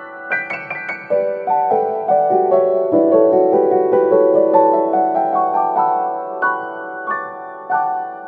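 Background piano music: a melody of struck notes over sustained chords.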